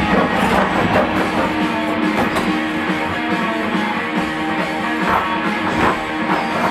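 Rock music with guitar and drums playing steadily and loud.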